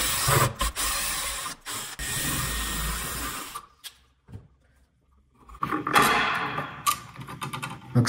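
Cordless power driver spinning out a light switch's mounting screw for about three and a half seconds with a short break. After a pause, a shorter run with some clicks.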